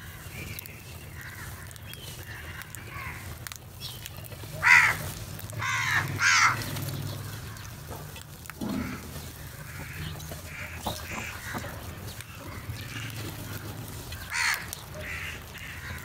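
A flock of house crows cawing while they feed. Loud harsh caws come about five seconds in, a couple more a second or so later, and another near the end, with fainter calls between.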